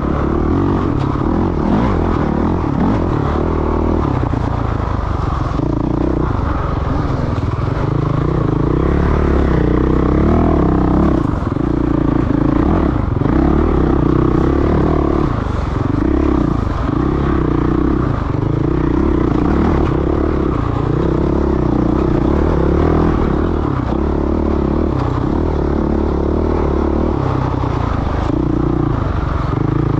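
Off-road motorcycle engine ridden hard through an enduro race test, the throttle opening and closing every second or two so the engine note keeps rising and dropping.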